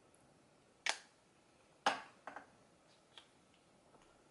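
A few sharp clicks against quiet room tone: two distinct ones about a second apart, followed by a couple of fainter ticks.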